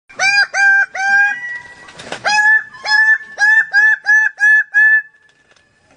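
A bird calling in a repeated series of short, pitched, nasal notes, each rising at its start then held: three notes, a sharp click about two seconds in, then seven more at about two a second, stopping about five seconds in.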